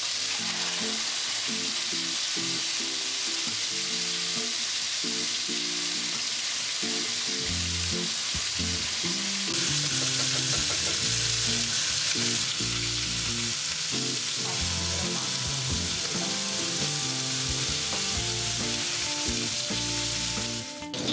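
Marinated chicken thighs sizzling steadily as they fry in oil in a frying pan, being browned but not cooked through.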